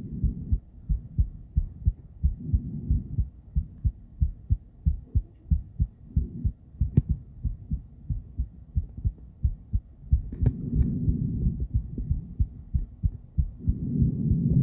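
A woman's heartbeat through an ultrasonic Doppler device: fast, even, low thumps, with swells of low rushing noise a few times and a single sharp click about halfway through.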